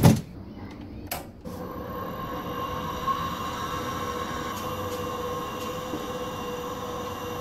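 A brief clatter at the very start. Then, from about a second and a half in, the 1956 Delta drill press's three-phase motor, fed by a variable-frequency drive, runs steadily with an even, pitched hum.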